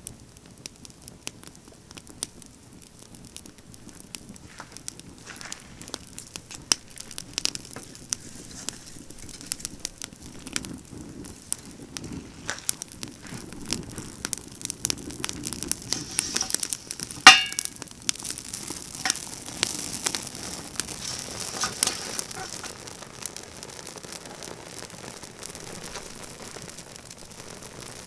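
Pine branches burning in a campfire, crackling with many small pops and a light hiss. One much louder sharp pop comes about two-thirds of the way through.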